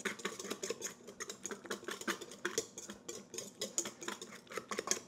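Wire hand whisk beating egg yolks and lime zest in a stainless steel mixing bowl, the wires clicking against the metal in a quick, even rhythm.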